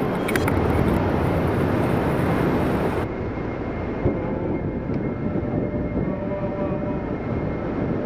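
Water of the Zambezi rushing over the lip of Victoria Falls, a dense, steady rush. About three seconds in it changes abruptly to a slightly quieter, duller rush of river rapids.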